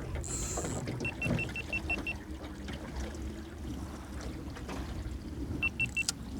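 Steady low rumble of wind and water around a small boat, with short electronic beeps at a single high pitch: a quick run of seven about a second in and three more near the end. A brief hiss comes near the start.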